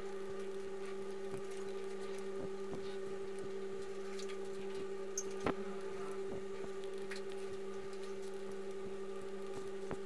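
A steady low hum at two pitches, with a few faint, scattered clicks.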